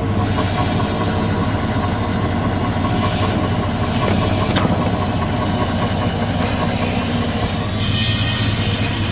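Truck engine idling steadily, a constant low hum, with a brief hiss about eight seconds in.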